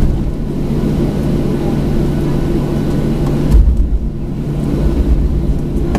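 Steady cabin noise of a Boeing 737-900 taxiing, heard inside the cabin: its CFM56-7B turbofan engines running at taxi idle as a low, even hum. About three and a half seconds in, a brief low rumbling thump rises over it while the higher sounds drop away for a moment.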